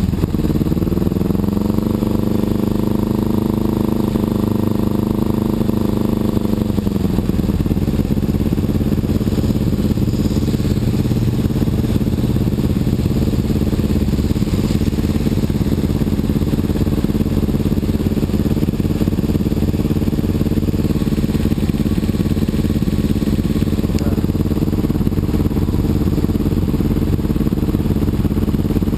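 Honda CBR954RR's inline-four engine running in stopped traffic. The revs ease down just after the start and hang a little above idle for several seconds. About seven seconds in the pitch drops and the engine settles into a steady idle for the rest of the time.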